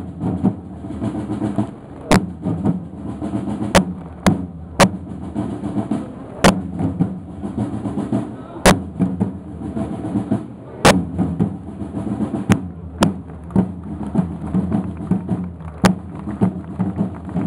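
Snare drums playing a rolling marching beat, with about a dozen sharp cracks at irregular intervals over it.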